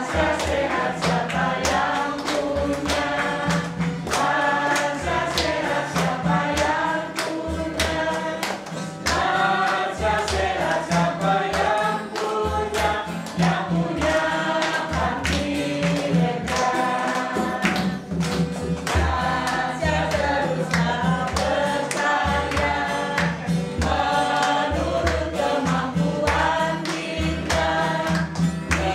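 A song sung in Indonesian, voices singing a melody over a steady beat and bass.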